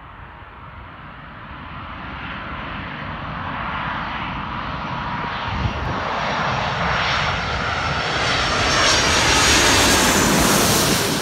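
Airbus A330 Voyager's two Rolls-Royce Trent 700 turbofan engines on landing approach. The jet engines grow steadily louder as the aircraft comes in low overhead, with a high fan whine above the rumble, and are loudest near the end as it passes over.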